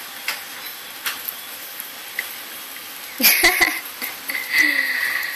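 A young puppy gives a short yelp about three seconds in, then a thin, high-pitched whine near the end, over a steady background hiss.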